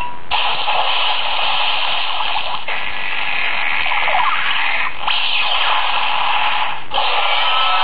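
Electronic sound effects from a toy transformation belt's small built-in speaker: a loud, hissy rushing noise in several stretches, each broken off by a brief dip.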